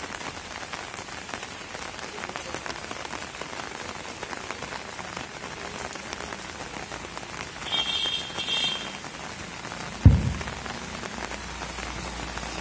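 Steady rain falling, a fine patter of many drops. Two short high chirps come about eight seconds in, and a single dull thump, the loudest sound, comes near the end.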